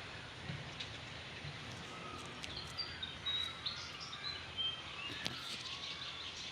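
Birds chirping with short, high whistled notes over a steady forest background hiss, with a few sharp clicks in between.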